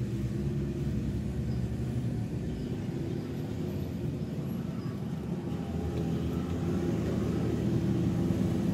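Steady low rumble of a large hand-spun potter's wheel turning on its pivot while a small clay pot is thrown on it.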